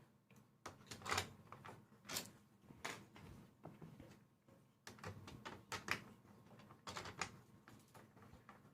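Light plastic clicks and knocks, coming irregularly and some in quick pairs: the octave key sections of a Nektar Impact LX49 MIDI keyboard being handled and fitted back into place.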